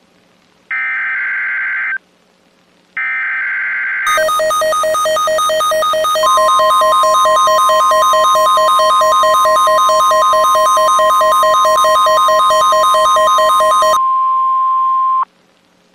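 NOAA Weather Radio alert coming through a Midland WR301 weather radio. It starts with two short bursts of raspy digital SAME header data, then the radio's own loud, rapidly pulsing electronic alarm sounds for about ten seconds. Under the alarm, from about six seconds, runs the steady 1050 Hz warning alarm tone, which carries on alone briefly and cuts off near the end.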